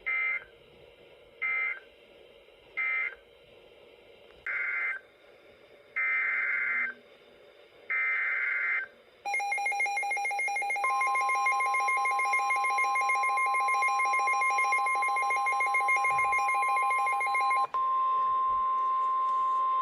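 Emergency Alert System SAME data tones: three short warbling digital bursts, the end-of-message code, then three longer bursts, the header of the next alert. Then the loud, harsh attention signal sounds, with a second steady higher tone joining about a second and a half later. Near the end the first tone stops and the higher tone carries on alone.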